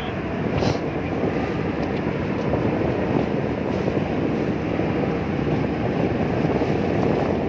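Steady rumble of a boat's engine mixed with water rushing past the hull, with wind on the microphone.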